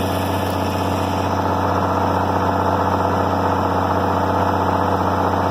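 International Harvester 706 tractor engine running steadily, its PTO switched off.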